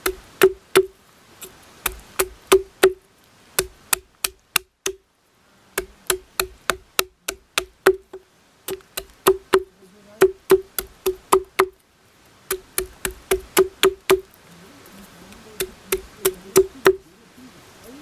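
Small wooden tarp stakes being hammered: runs of sharp wooden knocks with a hollow ring, about three to four a second, broken by several short pauses.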